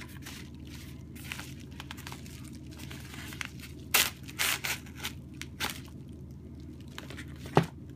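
Bubble-lined padded paper mailer being handled and slit open with a folding knife: paper crinkling and tearing, busiest about halfway through, with one sharp click near the end.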